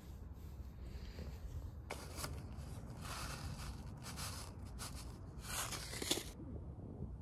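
Paper seed packet rustling and crinkling in the hands as it is handled and opened, in several short bursts over about four seconds starting about two seconds in, over a low steady rumble.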